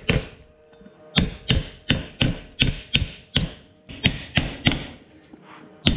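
A ball-peen hammer strikes a nylon block, driving a wheel bearing's outer race into a Toyota Land Cruiser FJ40 front hub. About a dozen sharp taps come roughly three a second, in short runs with a pause near the start.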